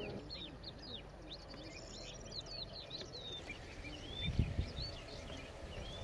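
A flock of pied avocets calling, a busy chorus of short, clipped calls several times a second over a steady outdoor background. A brief low rumble comes about four and a half seconds in.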